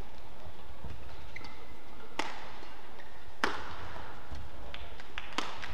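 Badminton rackets striking a shuttlecock during a rally: two sharp hits about a second and a quarter apart near the middle, then a fainter one near the end.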